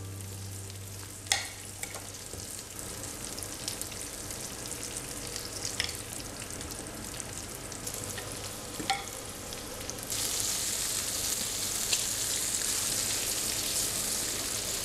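Guanciale sizzling as it renders its fat in a stainless steel frying pan, with a few sharp clicks along the way. The sizzle suddenly gets louder about ten seconds in as the pork is stirred with a spatula.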